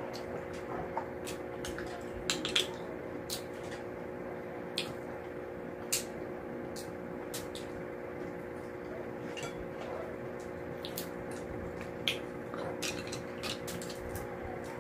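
Close-up eating sounds: wet chewing and mouth smacks with many sharp little clicks, as cooked mussels are pulled from their shells by hand and eaten. A steady low hum runs underneath.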